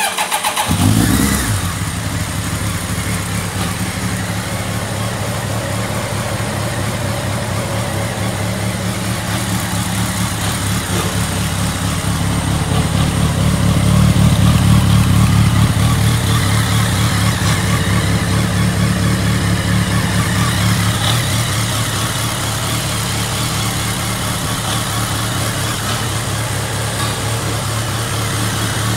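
BMW K 1200 R motorcycle's inline-four engine starting, with a short flare in the first second, then idling steadily. It runs somewhat louder for a few seconds midway.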